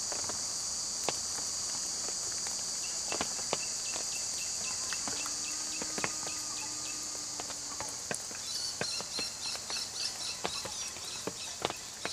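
Insect chorus: a steady high-pitched drone that breaks into pulsing, rhythmic chirping about two-thirds of the way through, with scattered faint clicks.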